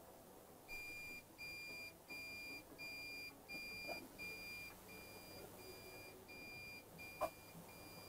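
Pyronix Euro-46 alarm keypad sounding its entry-delay warning tone, about three short beeps every two seconds, louder at first and softer from about halfway. The tone means the entry timer is counting down after the hallway PIR picked up movement with the system set. One sharp click sounds near the end.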